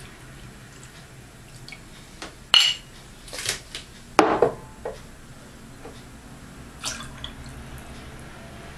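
Glassware handled on a table: a sharp glass clink about two and a half seconds in, a short splash of liquid being poured, then a heavier knock of a glass or bottle set down, with a few light clicks near the end.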